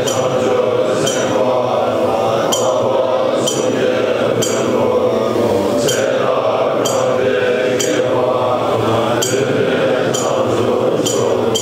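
Tibetan Buddhist monks chanting liturgy together in a steady, continuous drone, with clear, high metallic chimes struck over it about once or twice a second at an uneven pace.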